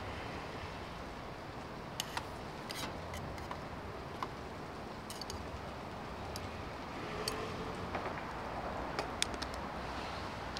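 Chopsticks clicking and tapping against a metal cooking pot and bowl as boiled noodles are lifted and dropped into the bowl: a scattering of light, sharp clicks over a steady hiss.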